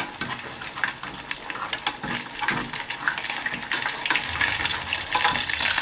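A papa rellena, a stuffed mashed-potato croquette, sizzling and crackling in hot oil, with a spatula working it loose from the pot bottom where it has stuck a little. The crackling grows louder about four seconds in.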